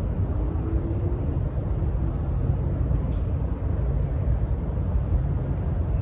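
Wind buffeting the microphone outdoors: a steady, loud low rumble that flutters constantly.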